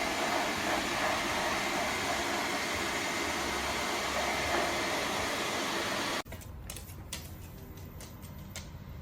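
Dreame L10s Ultra's vacuum suction motor running loudly and steadily with a rushing-air hiss. About six seconds in it cuts off abruptly to a much quieter background with scattered clicks.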